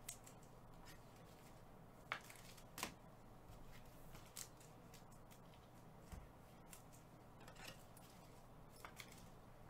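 Near silence over a low steady hum, broken by a handful of faint clicks and rustles as trading cards and foil packs are handled with gloved hands.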